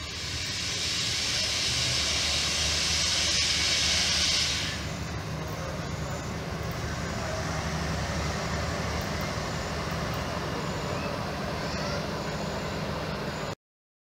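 Low steady rumble of an approaching diesel-electric passenger locomotive, with a loud high hiss over the first four and a half seconds. Faint bird chirps come in later, and the sound cuts out briefly near the end.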